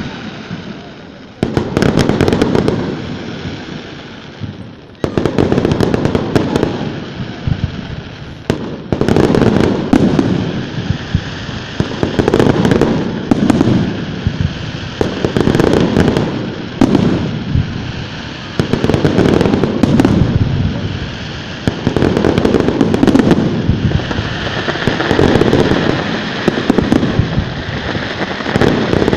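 Aerial fireworks bursting in a steady series, a loud bang every second or two, each trailing off in crackles.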